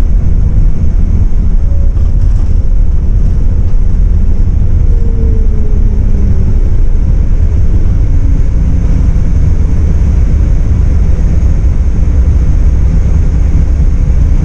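MAN 18.350 Modulo coach heard from inside while under way: a loud, steady low rumble of engine and road noise, with a faint tone sliding slowly down in pitch between about two and eight seconds in.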